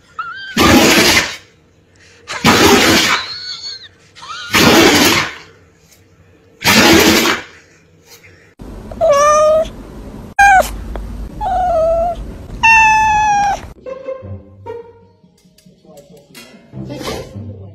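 Husky vocalizing: four harsh, breathy yells about two seconds apart, then a run of higher, pitched whining calls that bend up and down.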